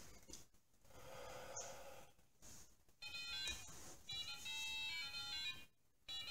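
A soft exhale onto an air-quality sensor, then, about three seconds in, the small speaker inside a DIY bird-shaped air-quality monitor plays a fast run of electronic chirps. It breaks off briefly near the end and starts again. The chirping is its high-level alarm for very bad air quality.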